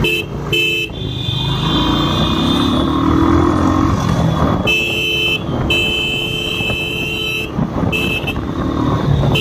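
Vehicle horns honking again and again in road traffic: a couple of short toots, then longer blasts of a second or more, over the steady low rumble of running engines. About two seconds in, one engine's note rises as it revs up.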